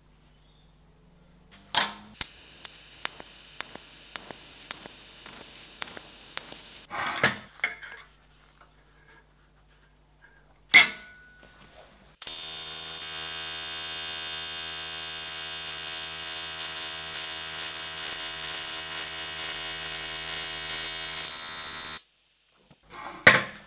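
TIG welding arc from an Arccaptain 200P TIG welder: a steady electric buzz for about ten seconds that starts and stops abruptly. Before it come a few seconds of rapid crackling pulses and a single sharp click.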